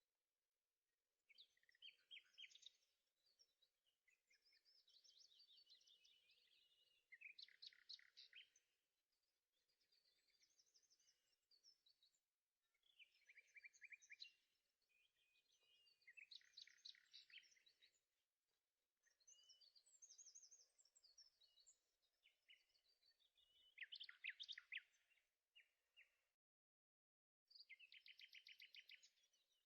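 Faint bird song: a run of high chirped and trilled phrases, each a second or two long, with short pauses between them. It drops out completely for about a second near the end.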